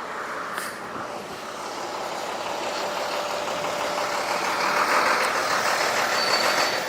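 Street traffic: a steady hiss of passing vehicles, swelling as one goes by about five seconds in.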